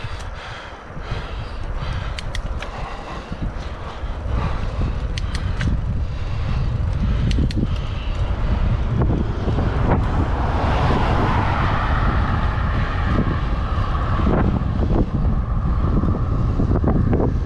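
Wind buffeting the helmet-mounted camera's microphone while cycling: a low, unsteady rumble that grows louder over the first few seconds. A steady hiss joins it about ten seconds in.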